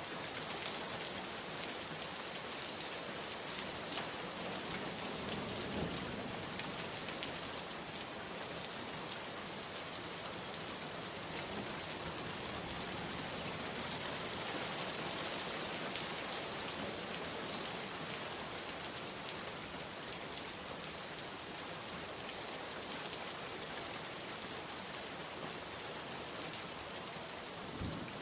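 Steady rain falling on a surface, an even hiss with scattered drop ticks.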